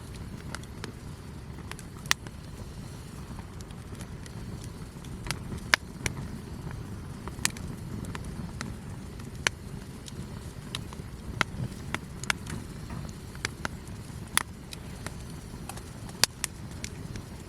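Wood fire crackling, with irregular sharp snaps and pops, some louder than others, over a steady low rumble.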